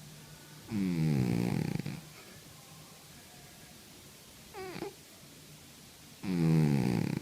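A sleeping cat snoring: two long snores about five seconds apart, each sliding down in pitch, with a faint brief squeak between them.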